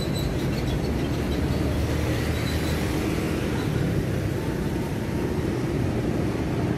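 Steady traffic and road noise with wind on the microphone, heard from a bicycle riding along a busy city road.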